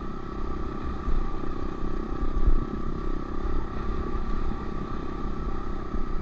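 Honda CRF125F's single-cylinder four-stroke engine running steadily under way on a trail ride, with rumbling wind buffeting the microphone.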